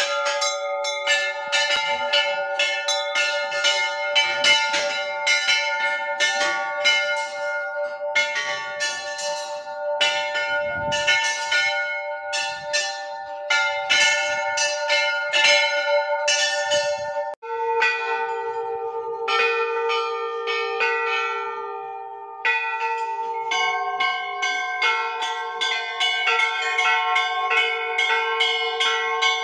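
Many hanging metal temple bells being struck in quick succession as people pass beneath them, the strikes overlapping into a continuous clanging with long ringing tones. The mix of pitches changes abruptly twice, about 17 and 22 seconds in.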